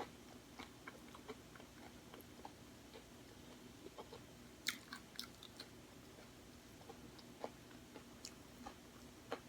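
Close-up chewing of a hard, crunchy taco shell (a spicy cheddar flavored corn shell): a run of small, sharp crunches, with a louder cluster of crunches about halfway through.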